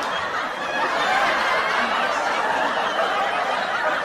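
Many people laughing together, a steady, dense mix of overlapping laughter.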